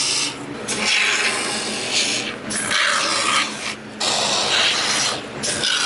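Can-fed spray foam gun hissing as insulating foam is squirted into a gap, in several long spurts with brief breaks between them.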